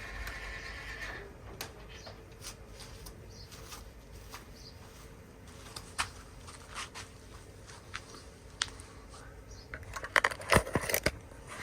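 Manual awning being cranked open through its reduction gear: scattered clicks and creaks from the mechanism and frame, with a cluster of louder knocks near the end.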